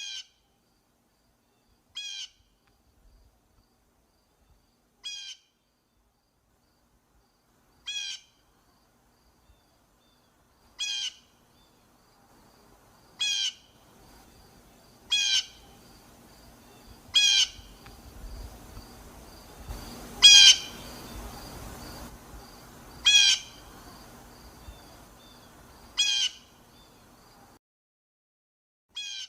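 Blue jay calling: about a dozen short calls, spaced every two to three seconds, growing louder toward the middle, where the loudest comes about two-thirds of the way in. A faint hiss and low rumble sit under the calls through the middle stretch.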